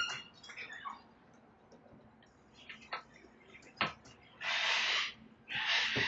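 Sulphur-crested cockatoos chewing the wooden verandah rail: scattered sharp cracks and clicks of beak on wood. Near the end come two harsh screeches about a second apart.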